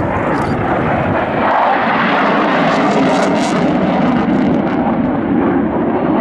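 Loud, steady aircraft engine noise, getting a little louder about a second and a half in.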